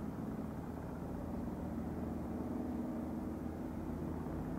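A steady low engine hum, even in pitch and level, with no bangs heard.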